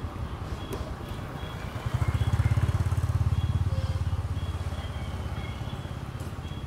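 A motorcycle engine running nearby, its low rapid pulsing swelling about two seconds in and fading again as it passes.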